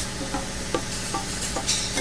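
Instrumental passage of a rock song playing as background music, with a steady hiss over it and a brief brighter hiss near the end.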